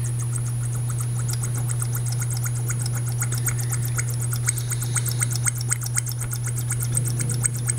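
Embossing tool working the reed slot of a harmonica reed plate in rapid, even strokes, over a steady low hum.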